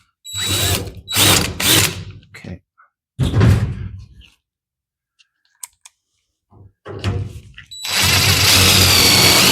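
Power drill running steadily for about three seconds near the end, a high motor whine over a noisy rush, as it works a self-tapping screw into the sheet-metal filter box. Before that, short knocks and handling sounds.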